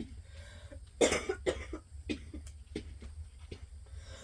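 A person coughing: one hard cough about a second in, followed by several smaller coughs.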